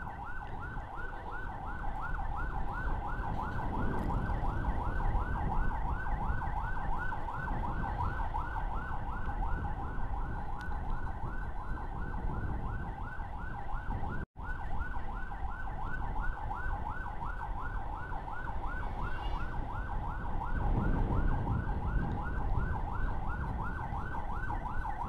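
Emergency siren in a fast yelp, its rising sweeps repeating several times a second, over wind and road rumble from a moving motorcycle. The sound drops out for an instant about fourteen seconds in.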